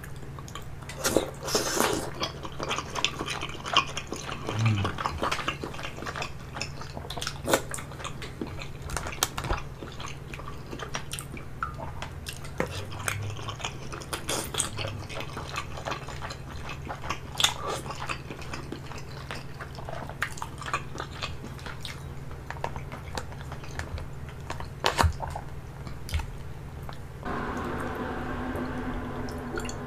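Close-miked eating of steamed dumplings: wet chewing and smacking, with sharp little clicks from wooden chopsticks and a metal spoon. Near the end a steady humming tone comes in.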